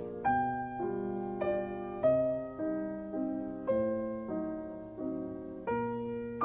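Piano music: a slow run of chords, a new chord struck about every two-thirds of a second and fading until the next.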